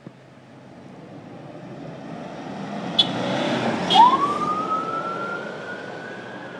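Police car siren: two short sharp blips about a second apart, then a wail that sweeps up in pitch and keeps climbing slowly, over a swell of vehicle noise that builds to its loudest around the blips.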